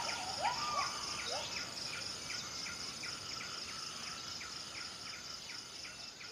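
Forest ambience: a steady, high insect chorus. Over it comes a run of short rising calls, about two a second, that die away after the first second and a half, with fainter repeated chirps throughout.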